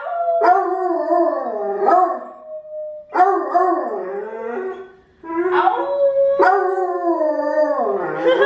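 Two hound dogs howling together in several long, drawn-out howls that sag in pitch at the end, with a woman howling along on a steadier 'ow'.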